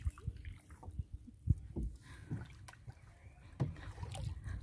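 Canoe paddle strokes and water lapping and splashing along the canoe's hull, over an uneven low rumble of wind on the microphone. A sharp knock about a second and a half in is the loudest sound.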